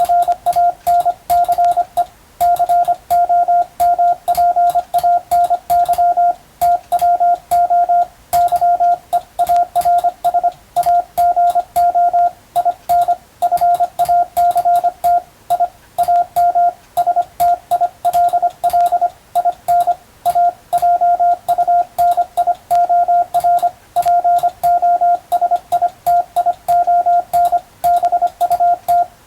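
Morse code (CW) sent by hand with a telegraph key, heard as a mid-pitched sidetone switched on and off in rapid dots and dashes with short gaps between characters and words. Faint sharp clicks mark the keying.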